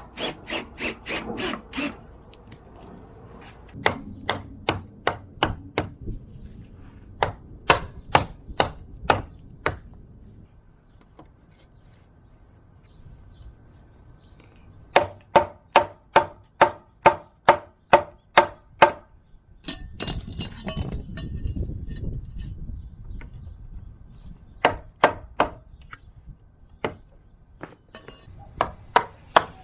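Hammer blows in runs of several quick strikes, about two to three a second, with pauses between runs, some strikes ringing, typical of hand-nailing during repair work.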